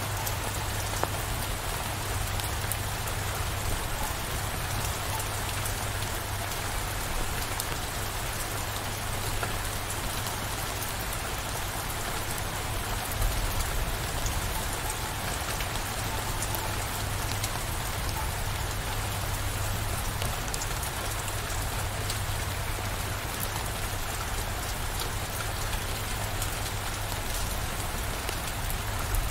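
Steady rain falling and pattering on surfaces, with a constant low rumble underneath and one slightly louder moment about thirteen seconds in.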